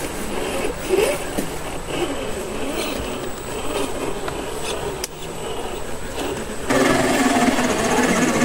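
A scale RC crawler's small electric motor and gears whining, the pitch wavering up and down with the throttle, with scraping and ticks from the truck working over rock. The sound gets suddenly louder about two thirds of the way in.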